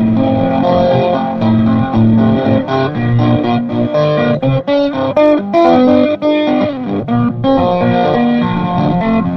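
Electric guitar solo played through a Peavey amplifier with effects, held low notes under a melody, and a quick run of bent notes around the middle.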